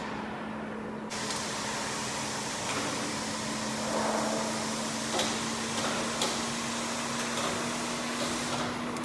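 Workshop noise with a handful of sharp metal knocks as a long steel shaft, hung from a lifting strap, is guided into a lathe's chuck. A steady hum runs underneath.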